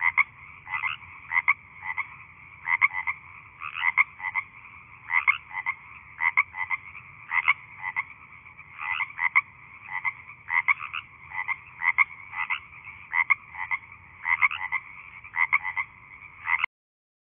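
Frog calling: short croaks repeated in irregular clusters of two or three, a couple of times a second, cutting off suddenly near the end.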